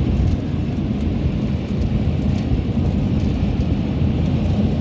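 Strong crosswind buffeting a moving Sprinter van, a steady low rumble over the van's road and engine noise; the gusts are strong enough to push the van sideways on the ice.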